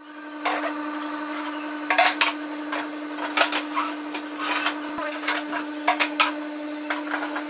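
Wooden clacks and knocks as the slats and legs of a wooden folding chair bump together while it is unfolded and folded, over a steady low hum.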